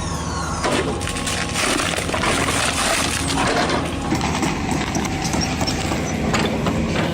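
Heavy machinery working wood: a dense run of sharp cracks and crunching over an engine's steady low hum.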